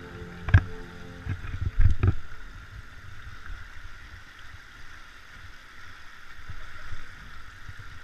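A 4x4 wading slowly through a shallow rocky creek: water rushing and splashing around the tyres, with a few heavy knocks in the first two seconds as it crawls over the stones.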